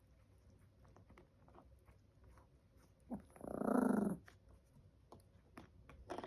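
Chihuahua puppy growling once, rough and loud for about a second, over a food dish, with faint clicks of kibble being eaten before and after.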